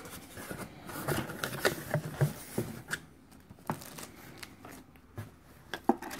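Rustling and handling noise of a cardboard mail box and a folded cotton T-shirt being lifted out of it, with scattered crinkles and clicks. Busiest in the first half, then sparser, with a few single sharp clicks near the end.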